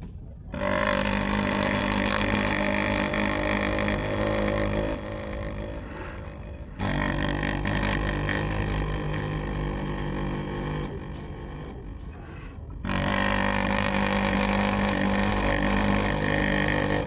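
Deep, droning monster sound effects: three long, steady low calls in a row, each lasting about six seconds and full of buzzing overtones.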